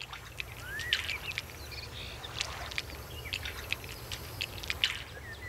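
Wetland ambience in shallow water: many scattered sharp little ticks and clicks over a low steady rumble, with one short bird chirp that rises and falls about a second in.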